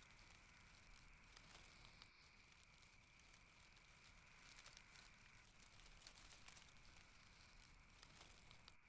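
Near silence: a faint hiss with a faint steady high-pitched tone and a few soft ticks.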